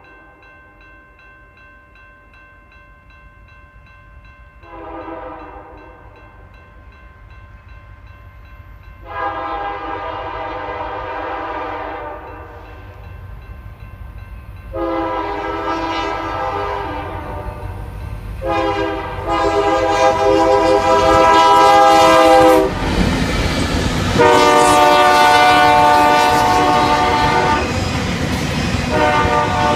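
Diesel freight locomotive's multi-chime air horn blowing the grade-crossing signal as the train approaches. After a short, fainter first blast, it gives two long blasts, a short and a long, each louder than the last. In the last few seconds the locomotive passes close with a heavy rumble of engine and wheels, while the horn keeps sounding.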